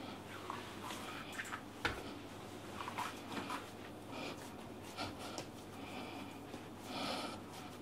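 Hands kneading a ball of cracker dough on a silicone baking mat: faint, irregular pressing and squishing sounds, with a sharper tap about two seconds in.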